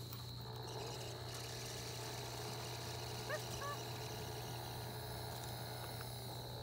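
Steady low hum of a Swift Paws lure-coursing machine's motor reeling in the lure line, with a thin steady high tone over it and two short chirps about halfway through.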